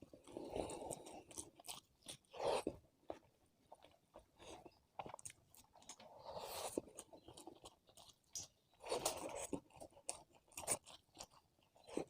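A person chewing and crunching food close to the microphone, in bursts a few seconds apart with short sharp clicks between them.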